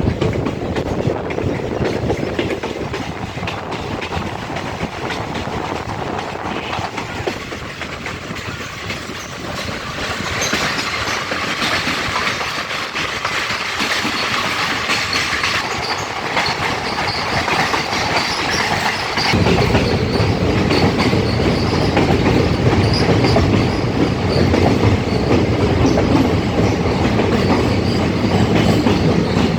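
Loud, steady rumbling of a moving vehicle with faint high squeals coming and going. It grows louder and deeper about two-thirds of the way in.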